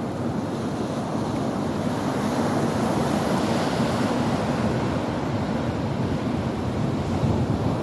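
Sea waves breaking and washing on the shore: a steady rush of surf that swells a little about halfway through.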